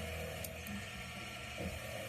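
CNC lathe running with a steady mechanical hum, with a few faint ticks.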